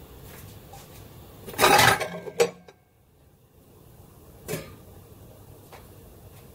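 Metal wok lid clattering against the wok as it is fitted shut over the steaming eggs: a loud clatter about a second and a half in, a sharp knock just after, and a smaller clank about four and a half seconds in.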